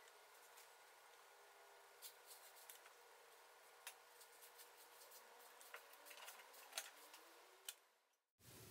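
Near silence: room tone with a few faint, scattered light clicks and taps, broken by a brief dead-silent dropout near the end.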